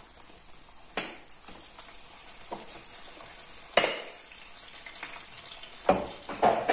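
Onion pieces frying gently in olive oil in a pan, a low steady sizzle. Over it come a few sharp knocks and clicks as seasoning shakers and jars are handled; the loudest is a little under four seconds in.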